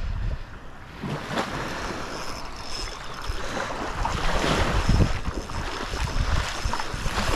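Small waves lapping and washing onto a sandy beach at the water's edge, with wind buffeting the microphone in low gusts.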